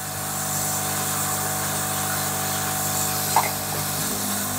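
Hot-air SMD rework station blowing steadily, a hissing air stream over a fan hum, as it heats a 2R2 SMD inductor coil at about 370 degrees to desolder it from an LED TV main board. A brief small click comes about three and a half seconds in.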